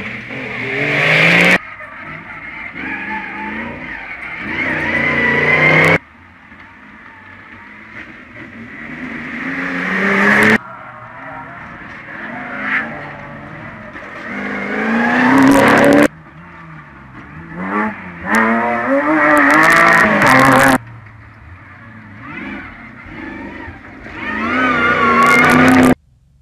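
Off-road competition 4x4s accelerating hard along a dirt track. Their engines rev higher and grow louder as each one approaches and passes. The sound is a string of short passes, each cut off abruptly.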